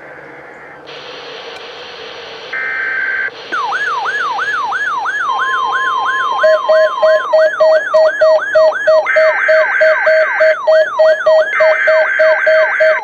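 Several NOAA Weather Radio alert signals layered over one another: the buzzing SAME header data bursts, a steady alert tone, and weather-radio alarms, one a rapidly repeating falling siren-like sweep about three times a second, another a fast pulsed beep. It begins with hiss about a second in, and the layers pile up and grow louder as it goes on.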